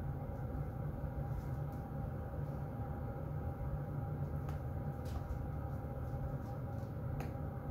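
Heater vent blowing air: a steady, low rushing rumble with a faint hum and a few faint ticks.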